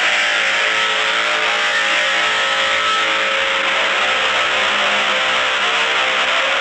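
A recorded 'tripod' sound played back through a phone voice-changer app's megaphone effect. It is a loud, steady, distorted blare with many held tones and a tinny, narrowed top end.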